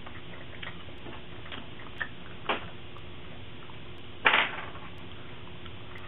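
Handling noise from hands working inside a Shuttle SA76G2 computer case: a few light clicks of cables and parts, and a brief louder rattle a little over four seconds in, over a steady hiss.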